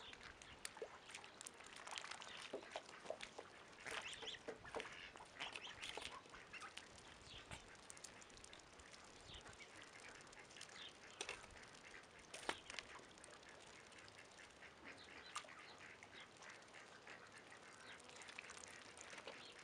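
Faint dabbling and splashing of ducks and young geese feeding with their bills in a shallow muddy puddle, many short wet clicks and ticks, with occasional soft duck calls.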